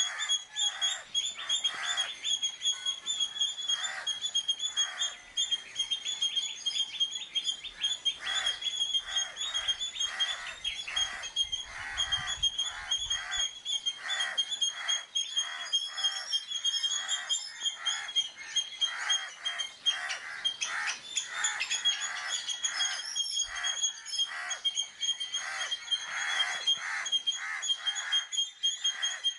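Indian palm squirrel (three-striped palm squirrel) giving its alarm call: sharp, high chips repeated several times a second without a break. This is the loud calling that palm squirrels make when danger threatens.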